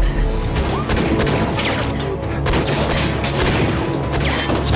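TV action scene soundtrack: a burst of gunfire, many shots in quick, irregular succession over a dramatic music score, opening with a heavy low boom.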